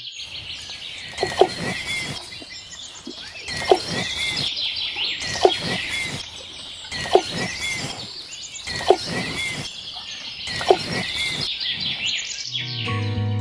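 Birds chirping steadily, with a short sharp click repeating six times, roughly every second and three quarters. Music comes back in near the end.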